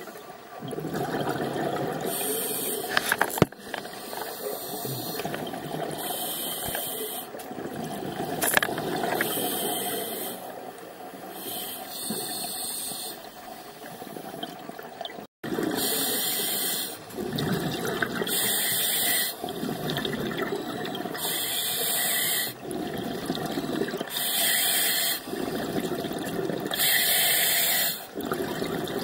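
Scuba regulator breathing underwater: bubbly, hissing surges of noise that rise and fall every second or two, the diver's exhaled bubbles and the regulator's flow.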